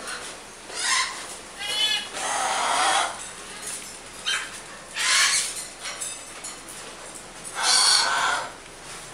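Parrots squawking: about six loud, harsh calls spaced a second or so apart, one with a warbling pitched note about two seconds in.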